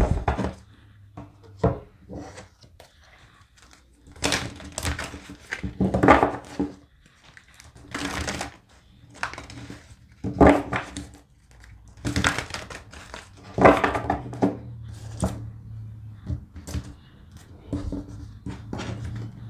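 A deck of tarot cards being shuffled by hand: repeated bursts of rustling, flapping card noise with short pauses between, then cards slid and laid down on a cloth-covered table near the end.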